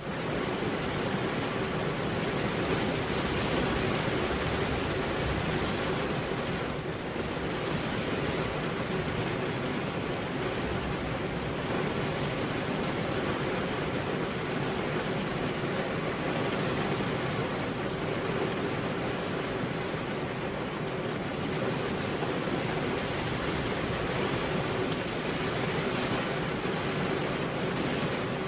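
Heavy rain falling steadily on a road: a constant, even hiss with no thunder.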